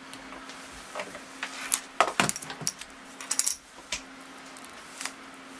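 Scattered small clicks and scrapes of hard pieces on a phone's back as broken rear glass and adhesive are picked off its edges, busiest around the middle.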